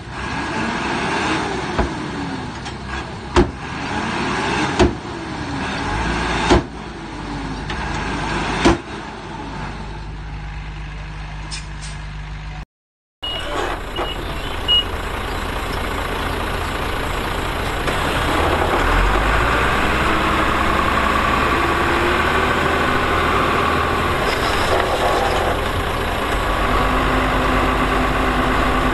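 Diesel engines of earthmoving machinery running, revving up and down again and again, with several sharp metallic clanks in the first half. After a brief break in the sound, a heavy engine runs steadily and grows louder about two-thirds of the way through.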